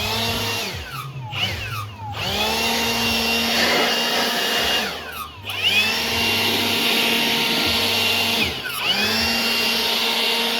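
Electric blower blowing sanding dust off metal stairs, its motor whine rising as it spins up and falling away as it stops. It is switched on and off about four times, in runs of one to three seconds.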